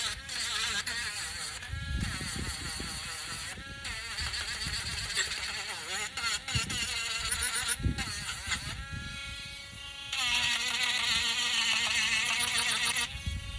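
Small electric sander running while a wooden piece is sanded: a buzzing motor whine that wavers in pitch, with a few short dips, and then holds steadier for the last few seconds.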